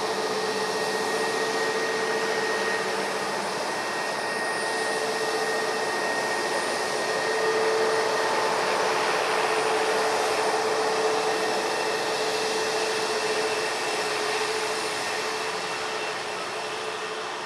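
Airbus A320neo jet engines whining steadily as the airliner taxis: a steady rushing hiss with a held whine, swelling a little about halfway through and easing off toward the end.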